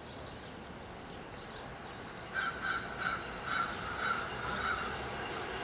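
A bird calling outdoors: a run of about six harsh calls, roughly half a second apart, starting about two seconds in over faint background.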